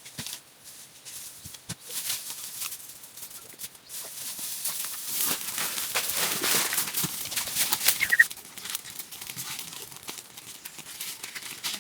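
Rustling and crackling with many small clicks, swelling in the middle, and a short high chirp about eight seconds in.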